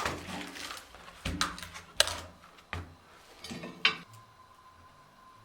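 Hard objects being handled: a series of knocks and clinks, the sharpest about two seconds in. A faint steady high whine sets in about four seconds in.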